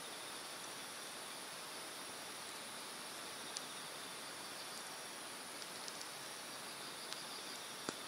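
Hardwood fire crackling with scattered sharp pops, the loudest near the end, over the steady rush of a mountain stream and the high trilling of insects.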